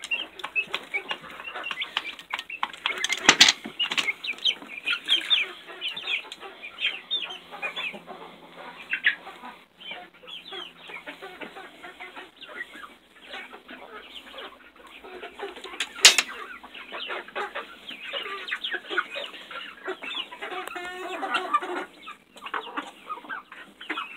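A crowded flock of chickens, young birds among them, clucking and peeping busily and without pause as they feed. Two sharp knocks stand out, about three seconds in and about sixteen seconds in.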